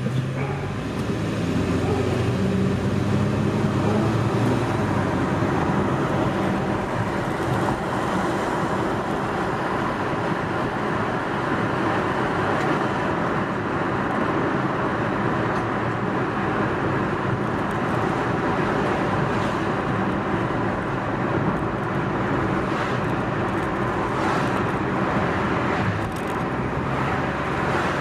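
A car driving: steady road and tyre noise with its engine underneath, the engine note most marked in the first few seconds as it pulls away from a light.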